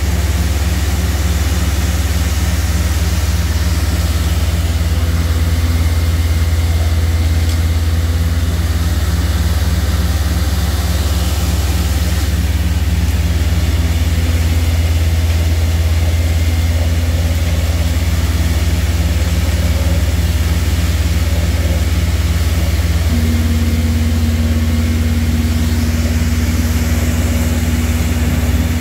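Western Star vacuum truck with a Weichai diesel running steadily, driving suction through the large hose held down in the dig hole. A slightly higher steady hum joins in near the end.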